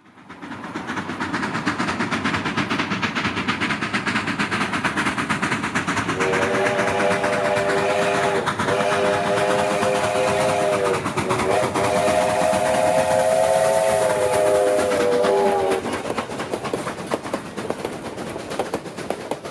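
Durango & Silverton narrow-gauge steam locomotive approaching with rapid exhaust chuffs and sounding its steam whistle, a chord of several notes blown in three blasts between about six and sixteen seconds in, the last the longest. After the whistle the passenger cars roll past, clacking on the rails.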